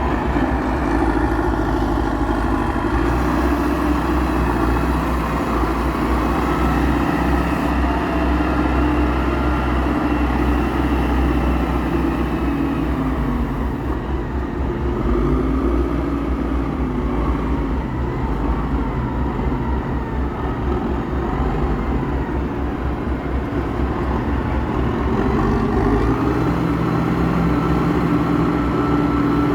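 Heavy vehicle engine running continuously at log loading, its pitch rising and falling slowly as it works, with a shift in the low rumble near the end.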